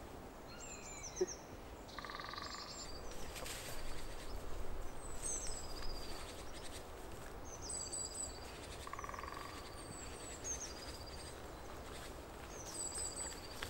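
Small woodland birds calling over and over, short high notes that fall in pitch, with a couple of lower, buzzier calls, over a faint rustle of movement in dry grass.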